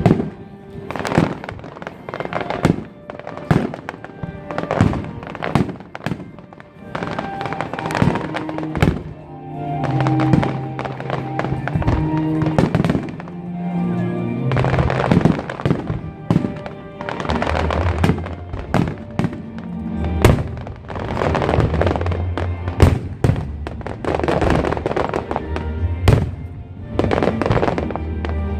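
Aerial fireworks bursting in quick succession over loud music, with a deep bass line coming in about two-thirds of the way through.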